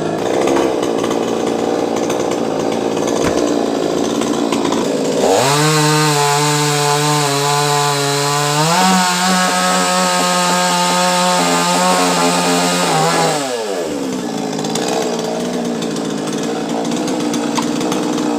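Chainsaw running, revved up to a high, steady pitch from about five seconds in, stepping higher near nine seconds, then dropping back to a lower, rougher speed at about thirteen seconds.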